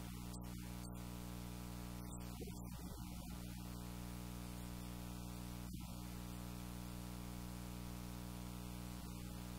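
Steady electrical mains hum with a layer of hiss, unchanging throughout.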